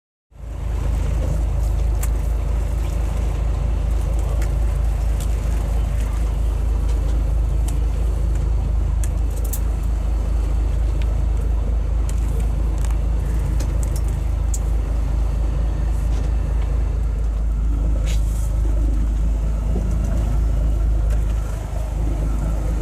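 Fishing boat's engine running steadily, a low rumble with noise and a few faint clicks above it.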